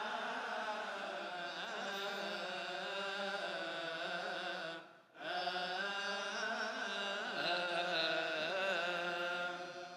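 Coptic liturgical chant: a long, slowly wavering melismatic line sung in Coptic. It breaks off briefly about halfway through, then resumes.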